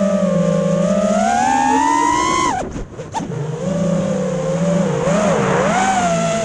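FPV quadcopter motors whining and tracking the throttle: the pitch climbs for about two and a half seconds, then drops sharply as the throttle is chopped. After a brief quieter gap the motors spool back up and waver up and down with small throttle changes.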